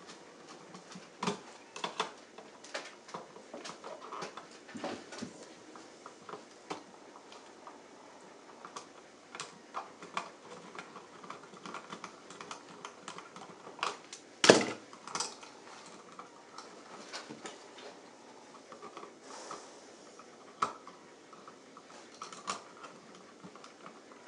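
Irregular small clicks and taps of an offset screwdriver being turned in short strokes to back out an electrical outlet's mounting screw, with the outlet held in a plastic outlet-gripping tool. One sharper click comes a little past the middle.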